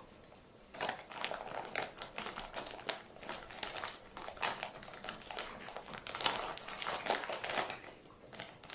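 Plastic snack wrapper crinkling, with dense, irregular crackles starting about a second in and fading near the end.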